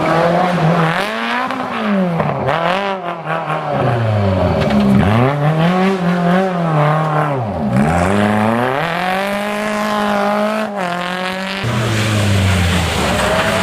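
Renault Clio rally car engine revving hard through a corner, its pitch climbing and dropping several times as the throttle is lifted and reapplied. Near the end the sound switches abruptly to another rally car's engine.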